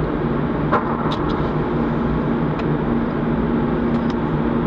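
Steady machinery drone and hum of a car ferry's vehicle deck (ship's engines and ventilation fans) echoing in the enclosed steel hold, with a few faint clanks over it.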